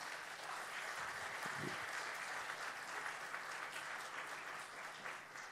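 Audience clapping, an even patter of many hands that fades out near the end.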